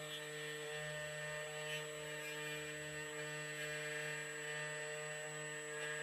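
CNC key cutting machine running steadily while milling a Ford HU198T key blank, a constant motor hum with a higher steady whine.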